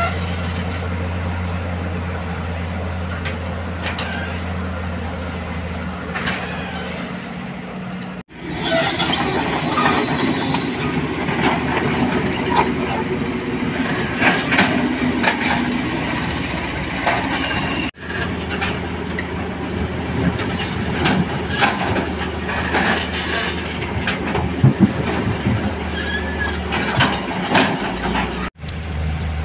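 Kobelco SK200 hydraulic excavator at work while digging: its diesel engine runs steadily, then louder working sound follows with metal clanks and brief squeals from the bucket and tracks. The sound cuts off abruptly three times.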